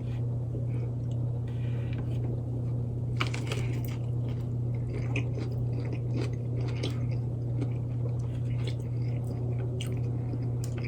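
A person biting and chewing a fried chicken sandwich, with scattered small crunches, over a steady low electrical hum.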